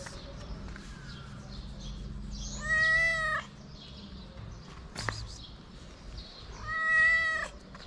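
Ginger-and-white stray cat meowing loudly twice, each call under a second, begging for food. A short sharp click falls between the two meows.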